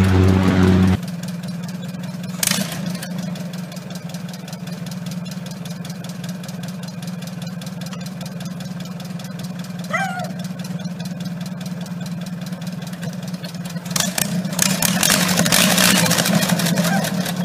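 Homemade dragster's engine idling with a fast, even beat. About 14 seconds in it picks up, louder and rougher, as the throttle is opened.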